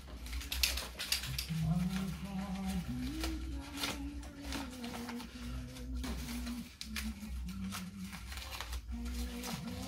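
Wrapping paper being handled, torn and cut: scattered crinkles, rustles and sharp clicks as a tightly wrapped present is picked apart. A faint melody of held notes runs underneath.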